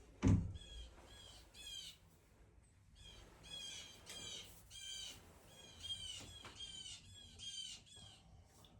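Squeaker predator call squeaking in short clusters of high, hooked notes, over and over, calling to lure a bobcat or coyote. A single loud thump comes about a third of a second in.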